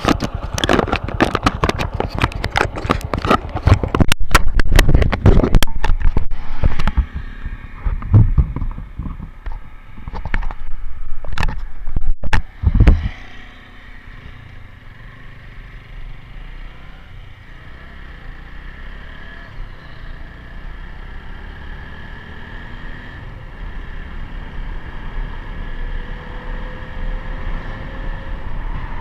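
Motorcycle on the move along a road: loud knocking and banging for about the first thirteen seconds, then a quieter, steady running noise.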